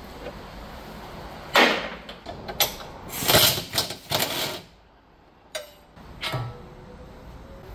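Tools and metal suspension parts being handled: a series of sharp knocks and short rattles, about six in five seconds, the loudest near the middle.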